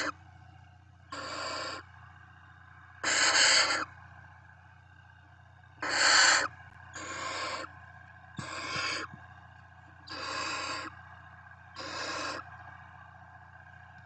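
Barn owl owlets giving harsh, wheezy hissing calls, the food-begging hiss of nestlings. There are about seven hisses, each about half a second long, coming every second or two; the ones about 3 and 6 seconds in are the loudest.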